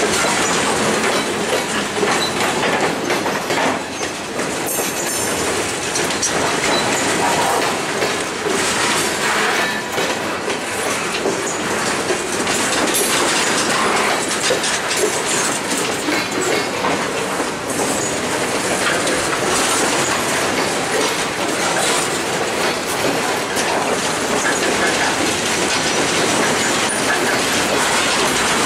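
Loaded flatcars of a freight train rolling past close by: a steady rumble of steel wheels on rail with a continuous clickety-clack.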